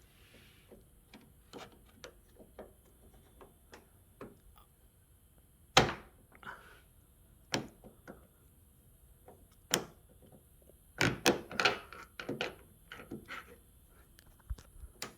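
Irregular clicks and knocks of hand tools and parts against a car door while its door handle bolt is being removed, the loudest about six seconds in and a quick cluster near the end.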